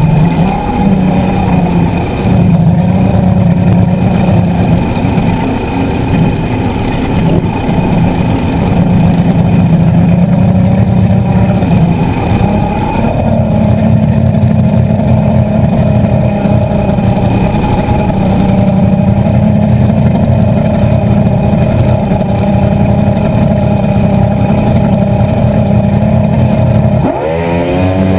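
Speedboat engine running loud and steady at speed, with rushing wind and water. Near the end the revs drop briefly, then climb again.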